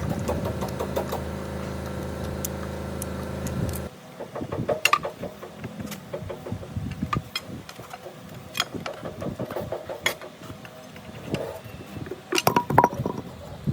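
An engine running at a steady idle cuts off abruptly about four seconds in. Scattered metallic knocks and clatter follow.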